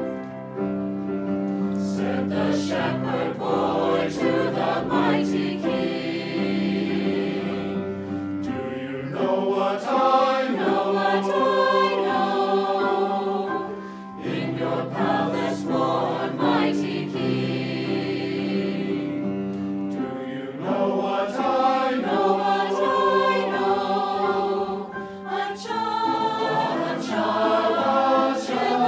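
Mixed choir of men's and women's voices singing together in sustained chords, phrase after phrase, with brief dips between phrases.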